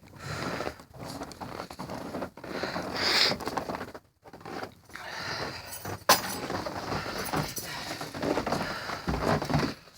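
Blizzard wind rushing over the phone microphone with rustling and handling noise, coming and going in uneven gusts, and a sharp click about six seconds in.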